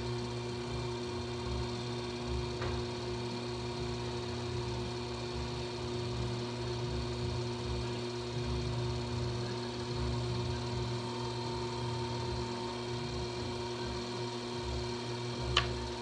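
Electric potter's wheel running at a steady speed, its motor giving an even, multi-tone hum. A single sharp click comes near the end.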